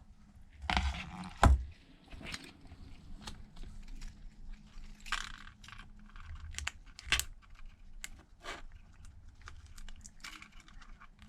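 Irregular small clicks, taps and short scrapes of tablet parts and hand tools being handled on a repair bench, with a louder knock about a second and a half in.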